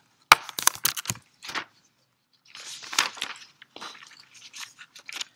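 Handling noise close to the microphone: a quick run of sharp clicks and knocks, then rustling and scattered small ticks, like papers or objects being moved on a desk.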